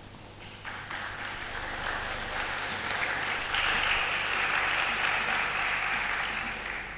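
Audience applauding, starting about a second in, growing stronger past the middle and dying away near the end.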